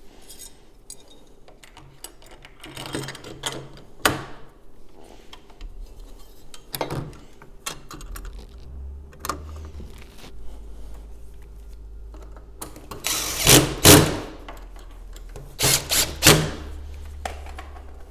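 Handle hardware being fastened back onto a sliding patio door panel with screws: scattered clicks and knocks of metal parts and a tool, with two louder clusters of tool noise about two-thirds of the way through and near the end.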